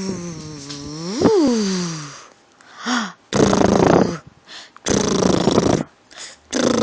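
A baby vocalizing: a long pitched squeal that slides down, jumps up and falls again, then a short call and a run of rough, buzzy growls, each about a second long.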